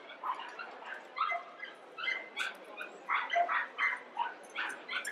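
Dogs barking and yipping, a rapid run of short, high-pitched barks coming several a second without a break.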